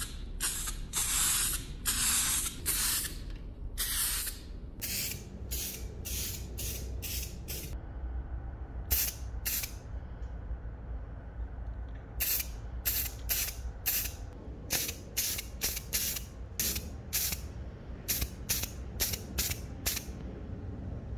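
Heat-resistant spray paint hissing out in repeated bursts as it is sprayed onto the cast-iron parts: a few longer blasts over the first few seconds, then many short quick puffs with brief pauses between them.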